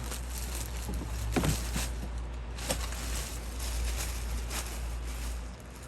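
Plastic packaging rustling and crinkling, with scattered clicks and knocks as the chainsaw is handled, over a steady low hum.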